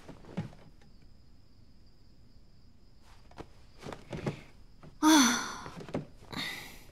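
A woman's sigh, voiced and falling slightly in pitch, about five seconds in, with a second breathy exhale just after. Before it come soft rustles and light knocks of bedding being handled.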